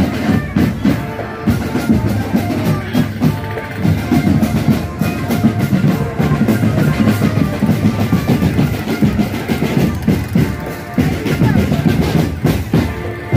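Loud drum-led procession music: bass drums and other drums beating a fast, busy rhythm, with a melody of held notes above.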